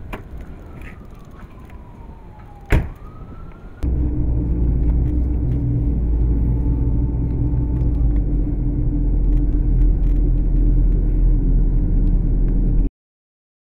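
A single sharp bang, then a car's engine and road rumble start abruptly and run steady and loud for about nine seconds before cutting off suddenly.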